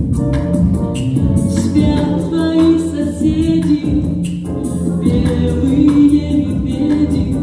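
A woman singing a pop song into a handheld microphone, amplified through the hall's sound system over a backing track with a steady percussion beat.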